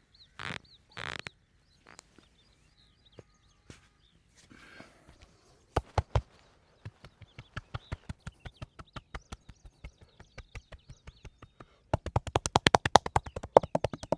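Percussive massage strikes, the masseur's hands tapping the body: a pair of sharp claps, then an even patter of about three or four strikes a second, breaking about twelve seconds in into a fast, louder drumming of roughly eight to ten strikes a second. Faint bird chirps sound in the background.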